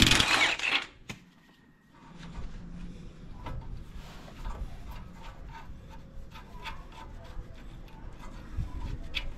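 Hand tools and metal suspension parts being worked on under a truck: a short loud burst of noise right at the start, then after a pause faint scattered clicks and scraping.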